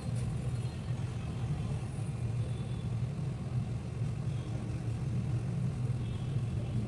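A steady low hum and rumble of background noise with no distinct events.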